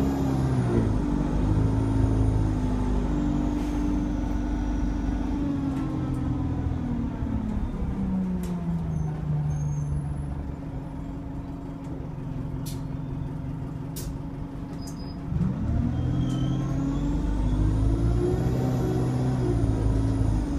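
Interior of an Alexander Dennis Enviro200 single-deck bus on the move: the engine and transmission drone rises in pitch as the bus accelerates, falls away as it slows, then climbs again as it pulls away about 15 seconds in, with a high whine rising and falling over the two pulls. A few sharp clicks and rattles from the cabin.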